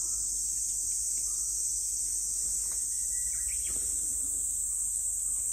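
Steady, high-pitched chorus of insects droning without a break, with a few faint brief chirps or rustles about halfway through.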